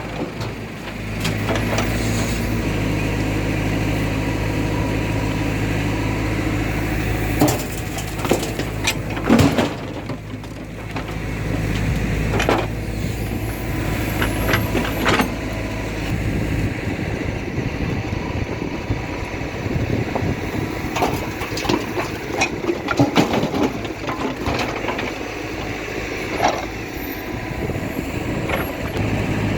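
Heavy diesel machinery engine running under varying load, with sharp metallic clanks and thuds every few seconds, typical of a backhoe loader digging and dumping mud into a trolley.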